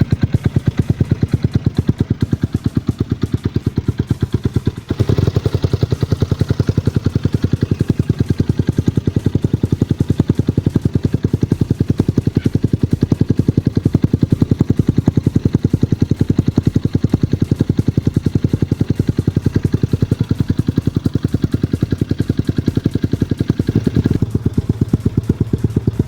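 Old-model Honda CBR150's single-cylinder four-stroke engine idling through a Yoshimura R11 aftermarket racing exhaust, with an even rhythm of exhaust pulses. About five seconds in it gets louder and brighter, dropping back near the end.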